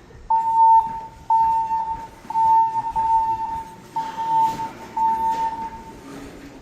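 Siemens voice-evac fire alarm speakers sounding their alert beeps, one high tone repeated roughly once a second, in the pause between recorded evacuation messages. The beeps stop shortly before the end.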